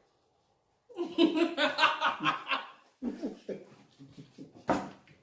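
People laughing, a loud burst of laughter about a second in that fades into softer chuckles, then one sharp pop or smack near the end.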